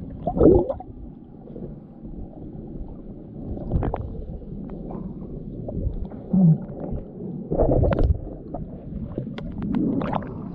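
Muffled underwater sloshing and gurgling picked up by a submerged camera, with a few dull knocks and bumps from a snorkeler moving about in shallow lake water.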